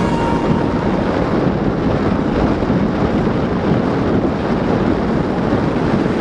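Steady wind rushing over the microphone of a handlebar-mounted camera on a road bike moving at speed.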